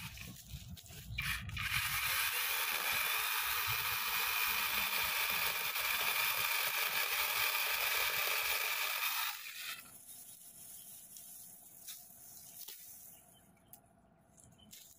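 Battery-powered mini chainsaw running and cutting into a tree trunk for about seven seconds, starting about two seconds in and cutting off suddenly.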